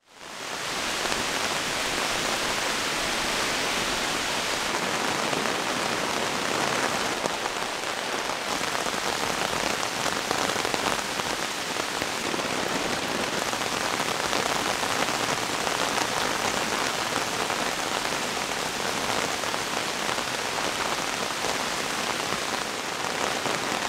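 Steady rain falling, fading in over the first second and then holding at an even, dense patter.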